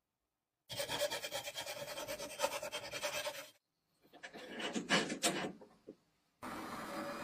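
Hand tool scraping and rasping against the small metal propeller of a tin toy submarine clamped in a vise, in two bouts, the second one louder.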